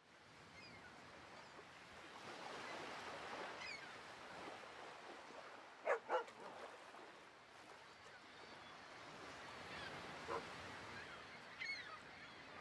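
Faint dog whimpers and yips: two short high yelps close together about six seconds in, then a few thin whines near the end, over a low hiss.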